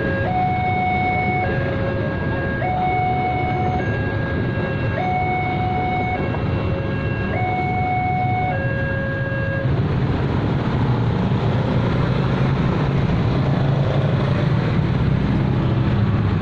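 Railway level-crossing siren sounding a two-tone alarm that alternates between a high and a low note about every second. It stops about ten seconds in, and a louder low rumble takes over.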